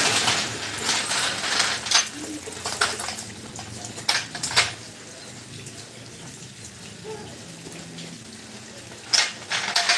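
Scattered metal clinks and knocks of hand tools and a floor jack handle: a few sharp knocks early and about halfway, a quieter stretch, then a quick run of clanks near the end.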